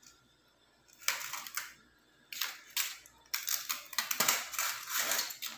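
Dry, pan-roasted banana leaf crackling and rustling in several bursts as it is peeled off a cooked banana ada.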